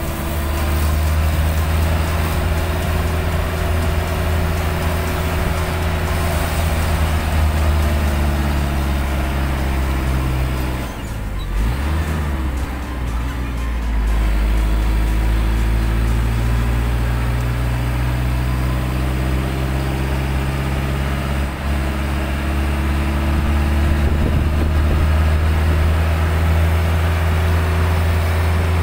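Motor vehicle engine running at a steady low drone while driving, with road noise. About eleven seconds in, the engine note drops and then climbs back up over a few seconds before holding steady again.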